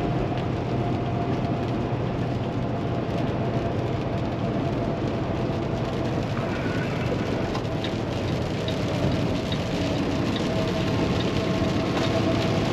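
Steady in-cab drone of a Kenworth T680 semi truck cruising at highway speed: the PACCAR MX13 diesel running under road and wind noise, with a faint steady whine over it.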